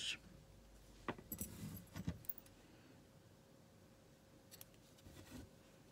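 Faint metallic clicks and clinks of small scissors being handled, a cluster of them about a second in, then a few fainter clicks near the end as green crochet yarn is cut.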